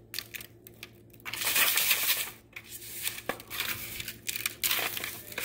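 Dry panko breadcrumbs rustling and crunching as a hand scoops and presses them onto a battered corn dog in a disposable aluminium foil pan, the foil crinkling under the hand. A few faint ticks come first, then louder, uneven bursts of rustling from about a second in.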